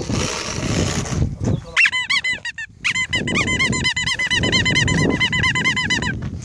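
Rubber squeaky dog toy squeezed over and over, about five squeaks a second, in two runs with a short break. Before that comes a scuffing rustle in the first second or so.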